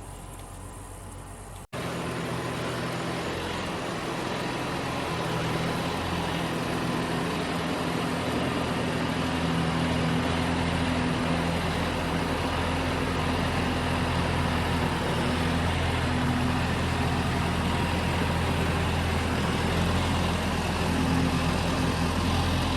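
A vehicle engine running steadily, starting abruptly about two seconds in and growing a little louder over the following several seconds.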